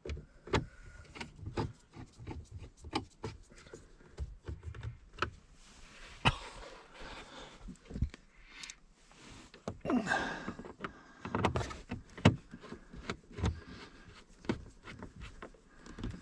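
Hand work reinstalling screws in plastic steering-column trim: irregular clicks, knocks and short scrapes of a screwdriver, screws and plastic panels.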